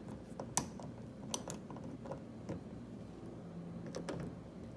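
Light, irregular clicks and taps of plastic and metal parts of a car door lock assembly being handled and fitted inside the door, two sharper clicks in the first second and a half, then fainter ones.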